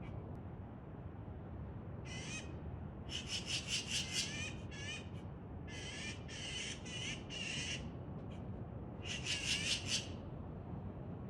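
Magpie giving harsh, rattling chatter calls in several bursts, the longest lasting a second or two, over a steady low background hiss.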